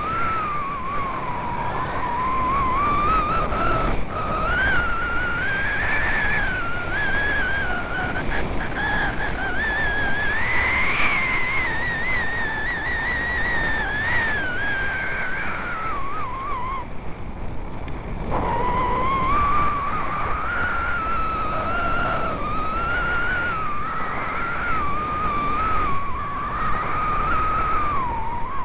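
Rushing wind on the microphone of a skier's camera going down a piste, with a high whistle that wavers in pitch and drops out briefly about two-thirds of the way in.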